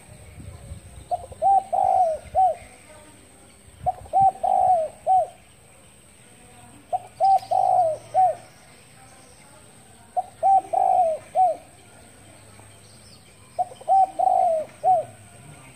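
Spotted dove cooing: five repeated phrases about three seconds apart, each a few short coos running into a longer one and ending on a short final note.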